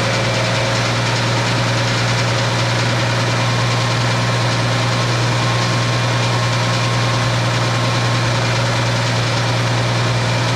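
Jeep CJ7's 4.2-liter inline-six idling steadily with a knocking noise and a misfire on cylinder number 5, which the owner puts down to a stuck lifter.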